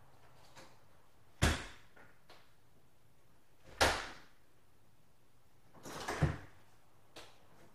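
Three sharp knocks, about two and a half seconds apart, the last one preceded by a short scuffing rustle.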